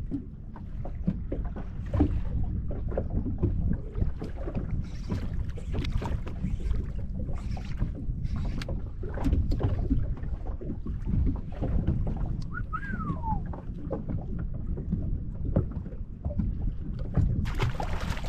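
Water slapping against a small boat's hull, with wind buffeting the microphone and many small knocks. About two-thirds of the way through comes a short whistle that falls in pitch, and near the end a brief loud hiss.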